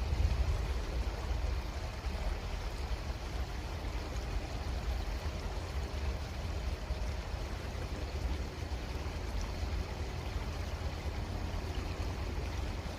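Creek water flowing steadily, an even rushing noise under a constant deep low rumble.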